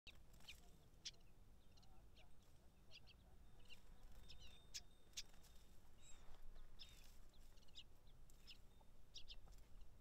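Japanese bush warbler giving faint, short, sharp call notes, about two a second at irregular intervals, some with a quick downward slide.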